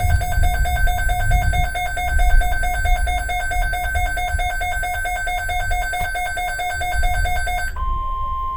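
Weather radio alert alarm beeping in a fast, steady repeating pattern, then switching near the end to a single steady tone: the NOAA Weather Radio 1050 Hz alert tone that comes before a warning or watch broadcast.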